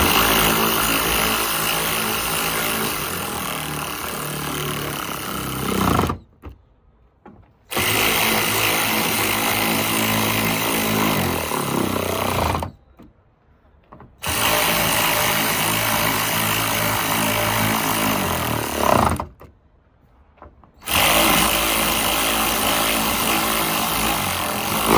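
Power drill driving in 10 mm bolts: four long runs of about four to six seconds each, steady in pitch, with short pauses between them.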